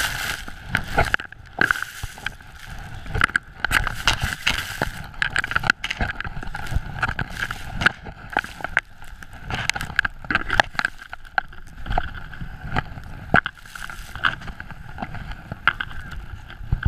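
Skis running and turning through deep powder snow, picked up by an action camera worn by the skier: continuous rushing noise broken by irregular thumps and scrapes of skis, poles and snow against the camera.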